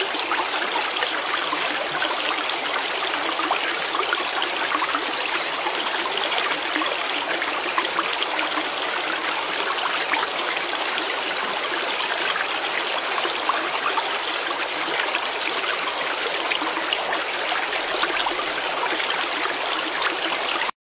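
Running, trickling water: a steady rush with many small splashes, which cuts off suddenly near the end.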